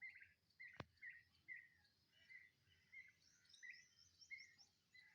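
Young turkeys peeping: short, faint chirps repeating about twice a second, with fainter high twittering in the second half. A single sharp click about a second in.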